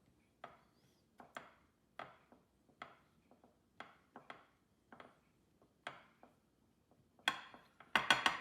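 A utensil knocking and clicking against a bowl while mixing seasoned flour, roughly one tap a second, with a quick cluster of louder knocks near the end.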